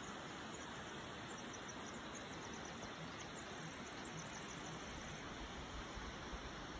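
Steady outdoor background hiss, with a quick series of faint, high chirps through the first five seconds or so.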